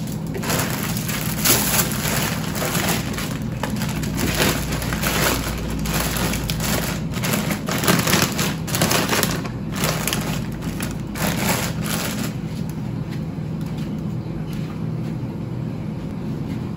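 Plastic packets of frozen food crinkling and rustling as they are pushed, shuffled and stacked on a freezer shelf, in irregular bursts that die down about twelve seconds in, over a steady low hum.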